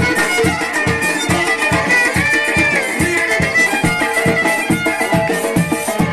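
Live traditional band music: a high, reedy wind melody from surnay and saxophone over a big bass drum and drum kit beating about three times a second. The melody holds one note with a bend about two and a half seconds in.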